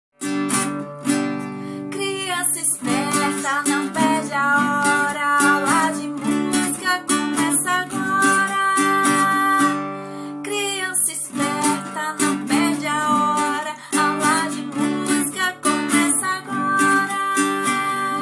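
Intro music: an acoustic guitar strummed in a steady rhythm, with a sustained melody line over the chords.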